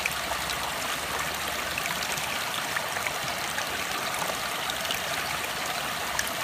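Small stream running steadily over rocks, an even rush of water.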